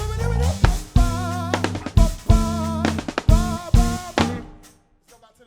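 Live band music: drums and bass striking together in a run of stop hits under a held, wavering vocal line, the music breaking off about four and a half seconds in.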